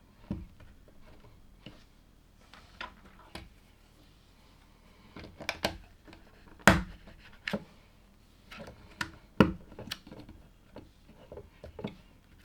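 Plastic LEGO pieces clicking and knocking as they are handled and pressed together, in irregular single clicks with two louder snaps about a third and three quarters of the way through.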